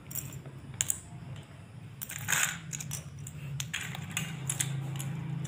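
Loose plastic Lego bricks and minifigures clicking and clattering against each other and the tiled floor as hands sort through them, in irregular sharp clicks. A steady low hum runs underneath.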